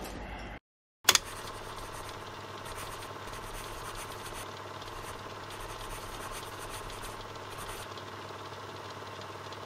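A steady hum made of several constant tones. It starts with a click about a second in, after a brief dropout.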